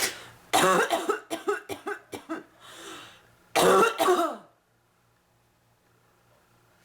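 A woman coughing from bronchitis: a fit of quick coughs about half a second in, then a second short bout about three and a half seconds in.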